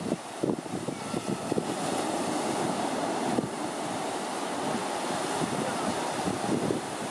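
Small waves breaking and washing up a sandy beach, with wind gusting on the microphone.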